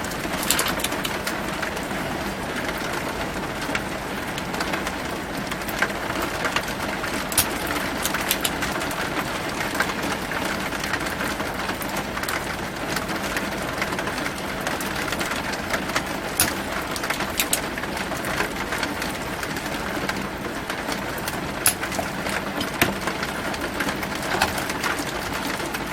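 Heavy rain falling, a steady hiss with scattered sharp drips and taps.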